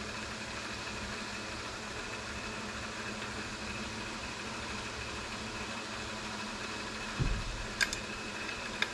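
Steady electrical hum of the Monarch 10EE lathe's drive running. About seven seconds in there is a short low thump, followed by a few light metal clicks.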